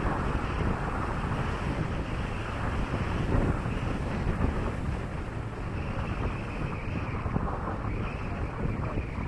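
Steady wind noise buffeting the microphone on the bow of a Linssen Grand Sturdy 34.9 AC motor yacht under way, over the rush of water along its hull.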